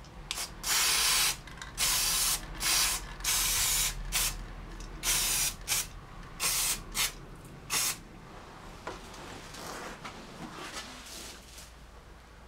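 Aerosol can of brake cleaner hissing in about eleven short and longer spurts onto drum brake shoes to wash off oil residue. The spraying stops about eight seconds in, leaving faint handling noise.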